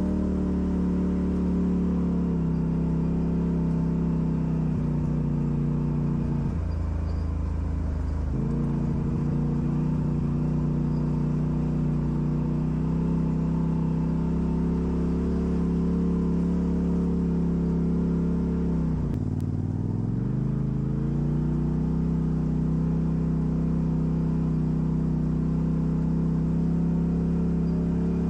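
Off-road vehicle engine running at steady revs. Its pitch drops for a couple of seconds about a quarter of the way in, then dips and climbs back up about two-thirds of the way through.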